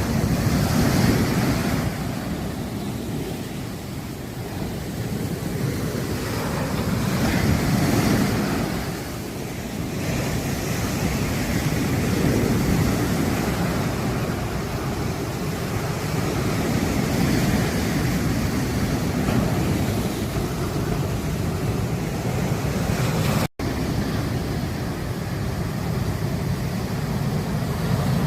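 Sea surf on a beach: waves breaking and washing in one after another, the rush swelling and easing every few seconds. The audio drops out for an instant near the end.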